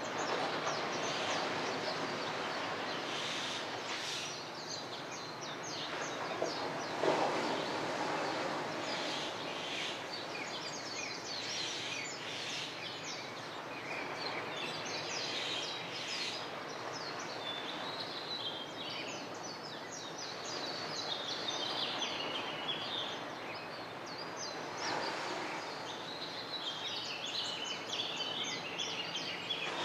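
Dawn bird chorus: many birds chirping and chattering in quick repeated notes over a steady background rush of outdoor noise. There is one short louder noise about seven seconds in.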